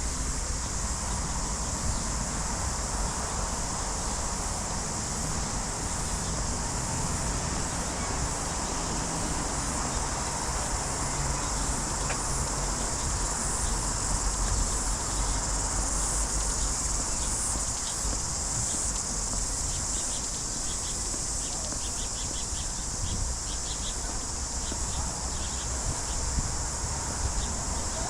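A steady, shrill chorus of insects buzzing continuously, over a low rumble. Near the end there is a short run of rapid ticking.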